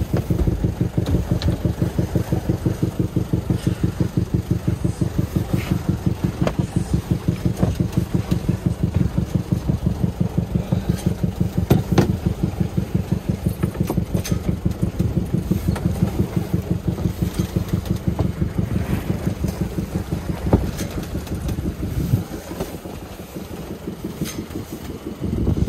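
A sailing yacht's small inboard engine running at a steady idle, heard through the open engine hatch in the cockpit floor as a fast, even chugging. It turns quieter about three-quarters of the way through. A few sharp knocks come from handling gear around the hatch.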